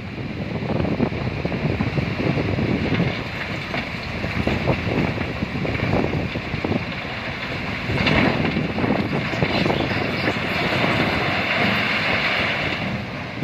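Heavy machinery running at a stone-crushing site, with irregular clatter of rock and wind buffeting the microphone; the sound grows brighter from about the middle.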